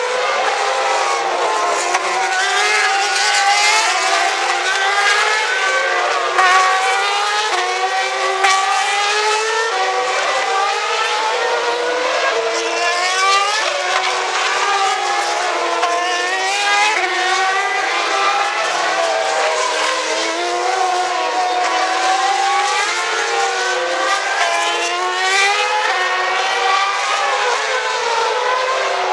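Several 2010 Formula One cars with 2.4-litre V8 engines passing one after another, their high-pitched engine notes overlapping and rising and falling in pitch without a break.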